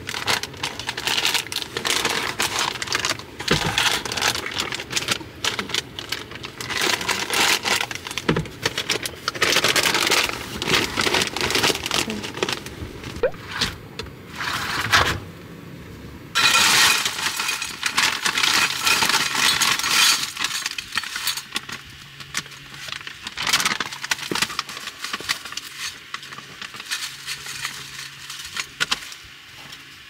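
Close handling noises: a busy run of clicks, clatter and crinkling of packaging, with a denser rustling stretch a little past the middle and a faint low hum in the last third.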